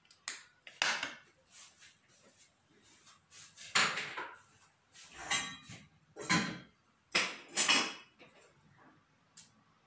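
Kitchen utensils clattering and scraping against cookware: about six short, sharp knocks and scrapes with quiet gaps between, the loudest around four seconds in and again near seven to eight seconds.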